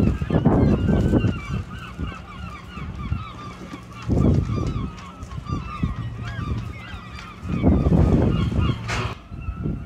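A flock of birds calling continuously, with many short overlapping calls. Low rumbling bursts come through near the start, about four seconds in and again about eight seconds in.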